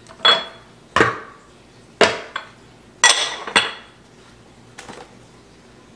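Small glass baking dishes clinking and knocking against each other and the countertop as they are handled, five sharp knocks about a second apart and a faint one near the end.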